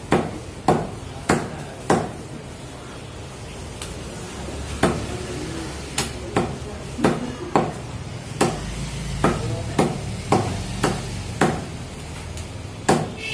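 Meat cleaver chopping raw chicken into biryani-size pieces on a chopping block: a run of sharp chops, roughly one or two a second at an uneven pace, with a pause of a few seconds about two seconds in.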